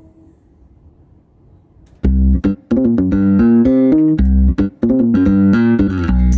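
Background music of plucked guitar and bass guitar, starting abruptly about two seconds in after faint room tone, with short note-by-note melodic steps and brief pauses.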